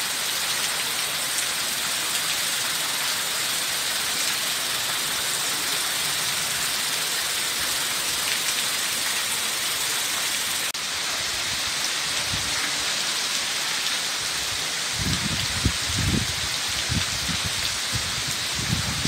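Heavy rain pouring on paving and garden foliage, a steady, even hiss. A few low thumps come in over the last few seconds.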